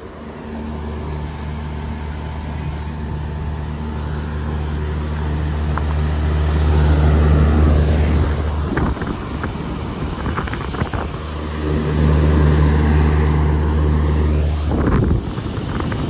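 Trane outdoor air-conditioning condensing units running: a steady low mechanical hum with fan noise over it, growing louder over the first several seconds.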